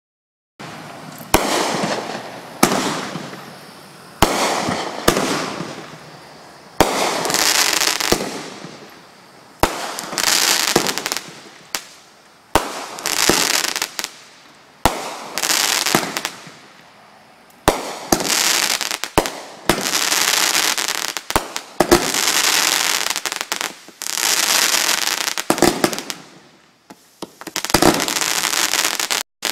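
A 500-gram consumer fireworks cake, Jake's Fireworks 'Loyal to None', firing shot after shot. Each shot is a sharp bang followed by a second or two of hissing from the bursting effects, and the shots come about every one to two seconds.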